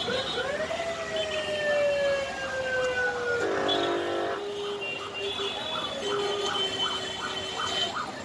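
A loud siren-like wail that rises sharply, then slowly falls for about three seconds before breaking into a steady lower tone. Under it, a large knife scrapes the scales off a big katla fish in quick repeated strokes, about three a second.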